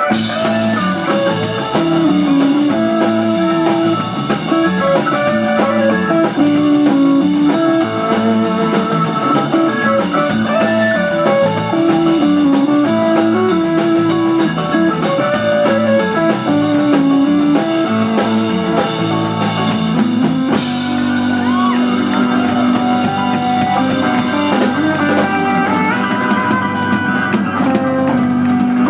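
Live rock band playing an instrumental: a drum kit, electric guitar, bass, piano and Hammond B-3 organ, the guitar leading with a fast melody over the beat. About twenty seconds in, a sharp hit leads into long held chords.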